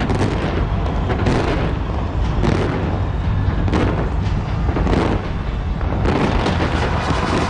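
Large fireworks display: a dense, continuous barrage of booms and crackling bursts, one after another.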